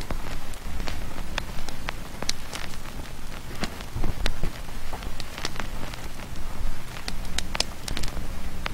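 Ambient noise soundtrack from a Raspberry Pi noise generator: a steady low drone under scattered, irregular crackles and clicks.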